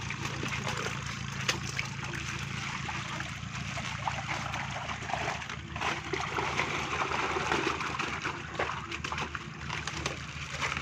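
Water splashing and dripping as a scoop net of live tilapia and water-filled plastic bags are lifted and handled, with scattered sharp knocks. A steady low hum runs underneath, strongest in the first half.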